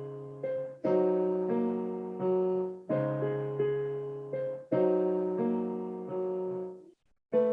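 Piano played in block chords, each struck and left to ring, roughly one new chord a second, with a brief gap near the end.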